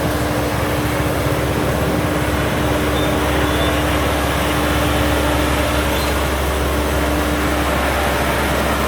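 A vehicle engine running steadily under dense road noise, with a steady hum that drops out near the end.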